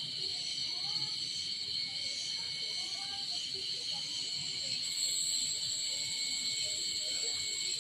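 Pine-forest ambience: a steady high-pitched insect drone, with faint short chirps beneath it.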